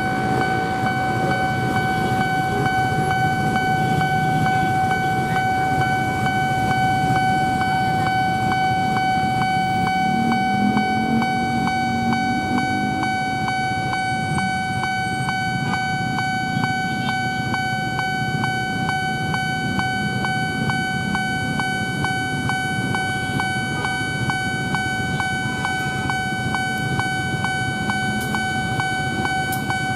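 Railway level-crossing warning bell ringing continuously, a steady high electronic tone struck in a fast even beat of about two a second, signalling an approaching train. Road traffic engines rumble underneath.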